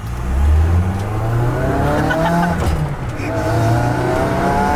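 Toyota AE86 Trueno's engine under hard acceleration. The revs climb and then drop back several times as it is driven up through the gears.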